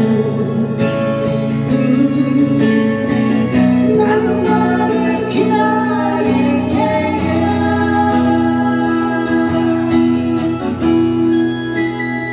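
Music: a song performed with singing over guitar accompaniment, with long held notes.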